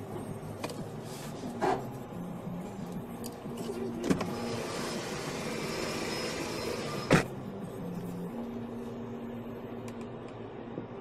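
Steady road noise inside a moving car's cabin, growing to a louder rush of noise between about four and seven seconds in. Three short sharp knocks cut through it, the loudest about seven seconds in.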